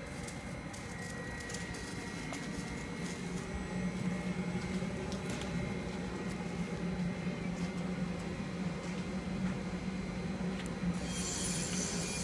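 Steady low mechanical hum from a tire-fuelled gasification boiler running at full burn, with a faint steady high tone above it; a hiss joins near the end.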